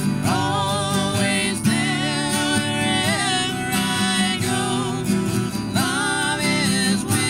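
Two acoustic guitars strummed together, with a voice singing a melody over them.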